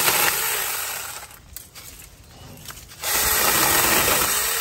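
Tomyvic 6-inch cordless mini chainsaw, a 21 V battery saw, cutting through tree branches. The saw runs at the start and winds down about a second in. It starts again sharply about three seconds in for the next cut.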